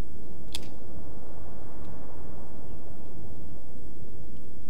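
A revolver fired at a target: a single sharp shot about half a second in, and another right at the end, over a steady low background rumble.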